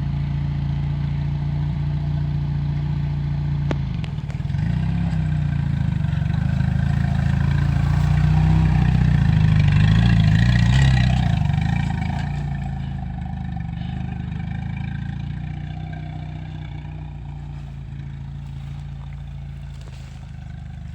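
Vehicle engine running steadily, building up in loudness from about four seconds in to about twelve seconds and then easing off, with a single sharp click near the four-second mark.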